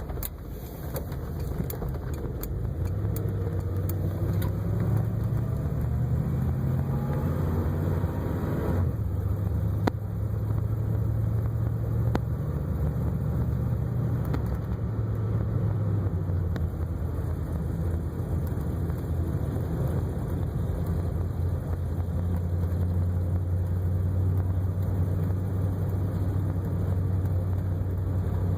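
1958 Cadillac's V8 running with a steady low drone; its pitch climbs from about three seconds in to about nine seconds in, then holds steady.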